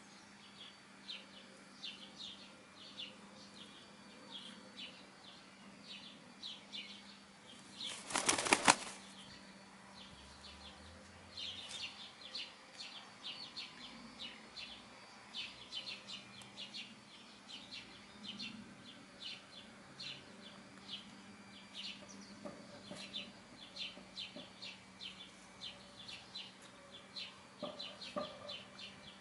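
Brown hen flapping its wings close by, one quick burst lasting under a second about eight seconds in, among hens foraging in the grass. Short high chirps repeat throughout.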